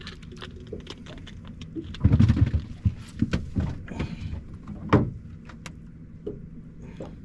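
A boat's motor hums steadily, with scattered clicks and knocks of gear being handled in the boat. A run of loud low thumps comes about two seconds in, and a sharp knock near five seconds.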